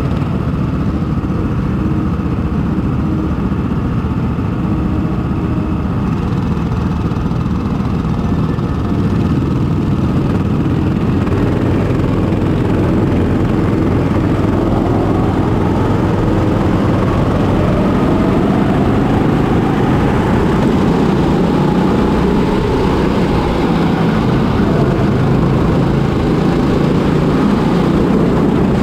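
200cc single-cylinder four-stroke kart engine (Kombikart Eco, GX200, 6.5 HP), heard onboard, running steadily while the kart sits on the grid, then revving up about halfway through, its pitch rising and falling as the kart gets up to speed. Other karts' engines run close around it.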